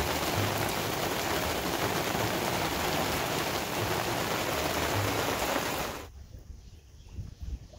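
Steady rain falling on the sailboat's canopy and the surrounding water, an even hiss that cuts off suddenly about six seconds in, leaving only faint low sounds.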